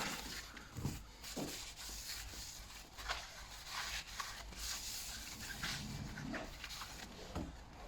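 Rubbing and wiping in irregular strokes as the protective grease is cleaned off new drilled and grooved brake discs.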